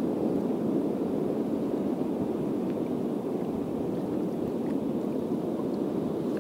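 Steady rushing noise of sea water washing around shoreline rocks.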